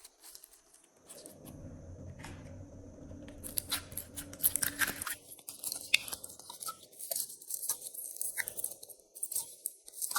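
Glossy slime being squeezed and stretched by hand, giving many quick sticky clicks and crackles. Under the clicks there is a low rumble during the first half.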